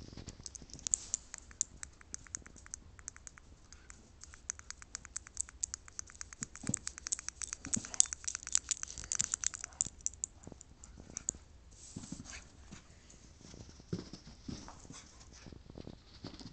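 A dog pawing and scratching at carpet with its claws, in long runs of quick, rapid strokes, with scattered thumps and scrambling footsteps as it chases a laser dot.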